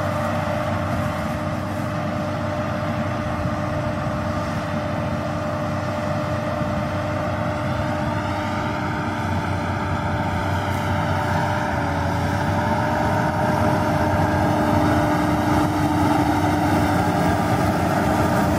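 John Deere tractor running steadily while pulling a Kuhn VB 2160 round baler through straw stubble, a steady engine and driveline hum with held whining tones, growing louder near the end as the machine comes closer.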